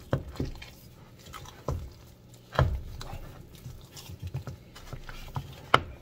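Wooden spatula stirring and mashing thick, freshly microwaved semolina fufu in a glass bowl: sticky squelching with a few sharp knocks of the spatula against the bowl.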